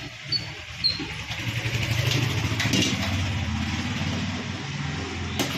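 An engine or motor running steadily, its low hum swelling toward the middle and easing off near the end, with a sharp click near the end.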